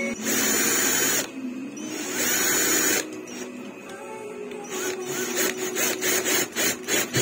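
Cordless drill-driver driving a screw into a metal pedalboard rail: the motor runs in two bursts of about a second each, then in a quick series of short trigger pulses near the end.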